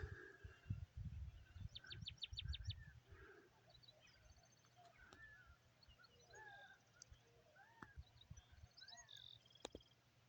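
Several wild birds calling and singing faintly, a mix of short chirps and slurred whistled notes, with a quick run of about seven high chirps about two seconds in. Low rumbling thumps sound during the first three seconds.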